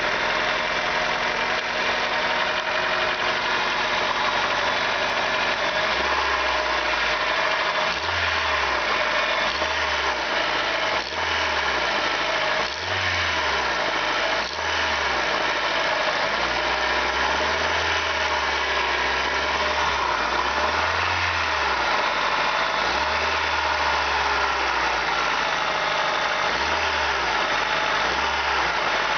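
Honda D15B inline-four engine idling cold with a knock from the bottom end: the crankshaft knocking in its main bearings, whose shells are scored.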